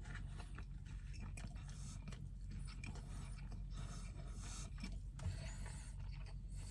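Quiet, steady low hum of a car idling, with faint scattered clicks and small handling noises.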